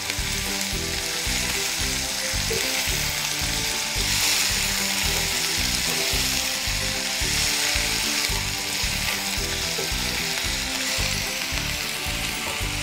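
Sliced spiny gourd (thumba karawila), onion and dried sprats sizzling in hot coconut oil in a pan as they are stirred with a spatula: a steady frying hiss over background music.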